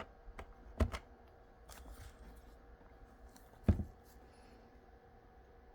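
Scattered computer keyboard keystrokes and clicks, with two louder knocks, one just under a second in and one a little before four seconds.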